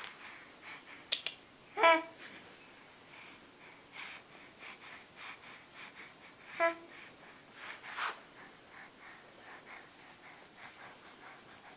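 An infant making two brief voiced sounds, one about two seconds in and a shorter one near the middle, amid faint rustles and a couple of sharp clicks about a second in.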